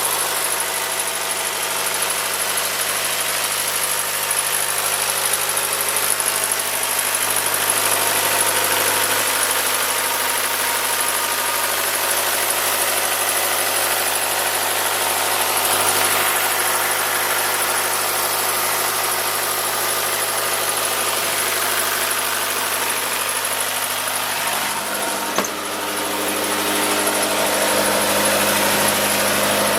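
Diesel engine of a 2014 Atlas Copco XAS185 towable air compressor running steadily. About 25 seconds in there is a single sharp click, after which the engine's tone shifts slightly and gets a little louder.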